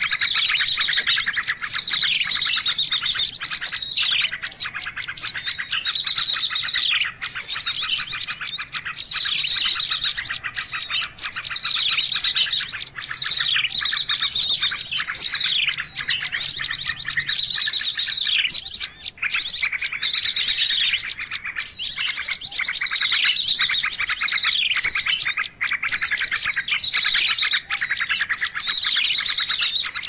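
Small songbirds chirping and trilling rapidly and without a break, a bird-lure recording meant to draw wild small birds in, with a downward-sliding call repeating every second or two.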